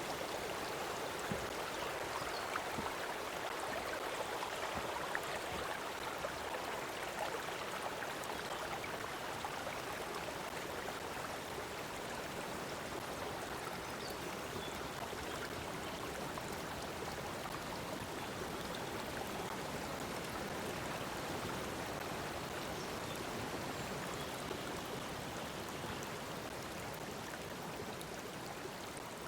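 Stream water flowing steadily over rocks: a continuous rushing babble with small splashes and trickles.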